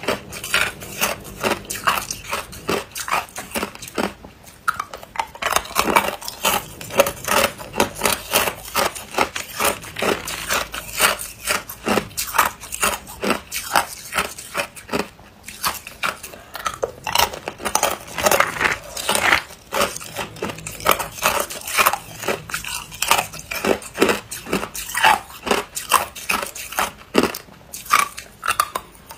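Hard, clear ice cubes being bitten and chewed close to the microphone: a fast, continuous run of sharp cracks and crunches, several a second.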